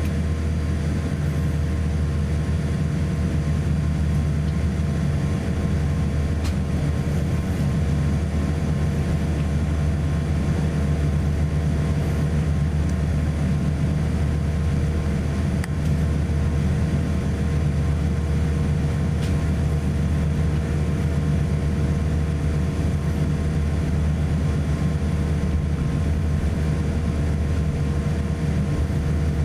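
Cabin noise of a Boeing 787-8 taxiing, heard from a seat over the wing: its Rolls-Royce Trent 1000 engines at idle and the cabin air make a steady low hum with several steady tones above it.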